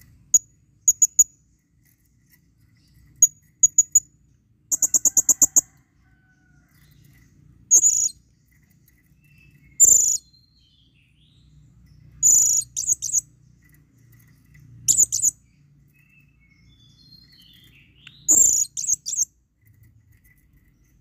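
Blue-crowned hanging parrot (serindit) giving shrill, high-pitched calls. At first it gives short single and paired chirps, then a quick run of about eight notes around five seconds in, then longer, harsher calls every two to three seconds. These are the calls of a bird in breeding condition calling to a female.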